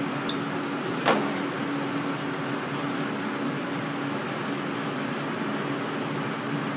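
Metal tongs set down on a metal sheet pan: one sharp clack about a second in, over a steady low hum and hiss of kitchen background noise.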